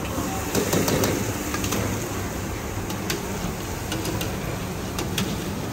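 Street food stall ambience: a steady low mechanical hum, with scattered sharp clicks and knocks of cooking utensils.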